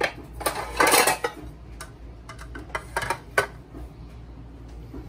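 Kitchen clatter: a string of clinks and knocks as a plastic hand blender is knocked against a stainless steel bowl and laid down on a plate. The knocks are densest about a second in, thin out, and stop after about three and a half seconds.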